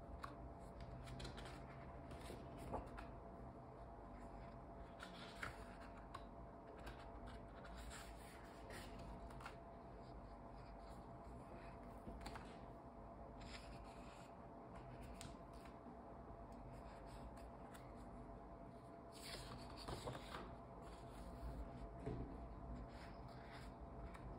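Paper sketchbook pages being turned and smoothed flat by hand: quiet, intermittent rustles and slides of paper, with a cluster of louder rustles near the end.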